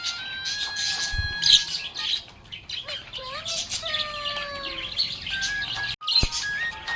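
Budgerigars chirping and warbling in quick, busy bursts over background music, with a brief break about six seconds in.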